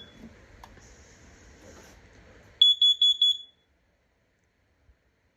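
Carbon monoxide alarm sounding its test: four rapid, high-pitched beeps about two and a half seconds in, the four-beep pattern a CO alarm uses.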